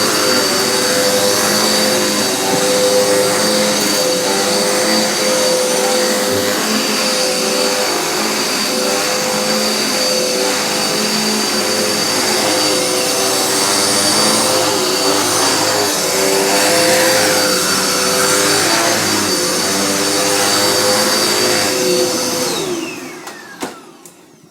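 Dirt Devil Endura Reach compact upright vacuum cleaner running, really loud, with a steady high whine over its motor and airflow noise. Near the end it is switched off and winds down, its whine falling in pitch.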